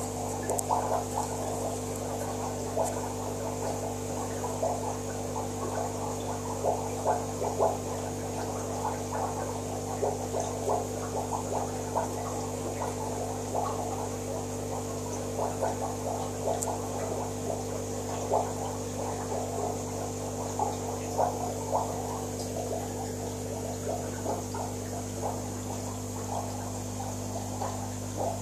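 Aquarium air line or filter gurgling, with irregular small bubbling pops over a steady electric hum from the pump.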